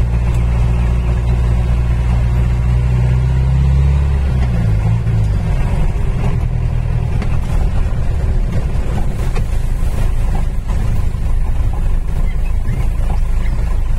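A car's engine and road noise while driving: a steady low drone whose note shifts about four and a half seconds in, then a rougher, noisier rumble.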